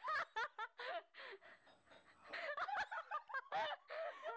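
People laughing in short voiced bursts, dying down about a second in and breaking out again midway.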